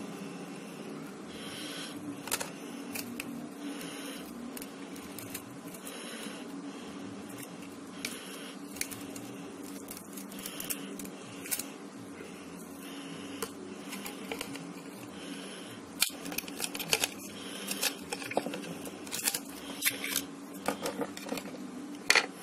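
Clicks, ticks and scraping of a cracked Oppo A3s touchscreen being pried off its frame with a plastic card, the glued screen letting go bit by bit. The clicks come scattered at first and then thick and fast in the last several seconds, over a steady low hum.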